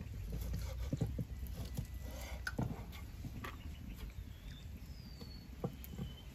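A cleaver chopping pork belly on a thick wooden chopping block: a few separate dull chops in the first few seconds. In the second half, short falling chirps of birds and low rumbling handling noise.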